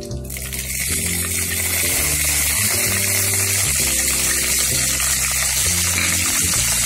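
Curry leaves sizzling in hot mustard oil in a kadhai. The sizzle jumps up just as the leaves hit the oil and then holds steady.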